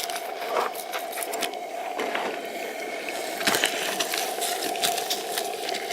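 Fillet knife cutting a fin off a northern pike: a string of short crunching clicks and scrapes as the blade works through fin rays and skin, over a steady faint hum.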